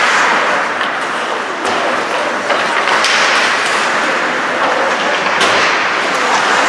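Ice hockey play: a steady hiss of skates scraping the ice, broken a handful of times by sharp clacks of sticks and puck.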